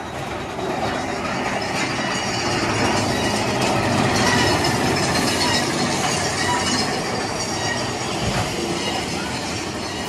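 Big Thunder Mountain Railroad mine-train roller coaster cars running along the track, a steady noisy rattle and wheel rush that grows louder over the first few seconds and then eases a little.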